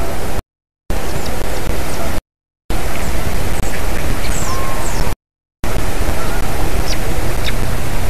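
Loud, steady hiss-like noise from a treetop nest webcam's microphone, cut by three short silent dropouts, with faint short high chirps of small birds over it.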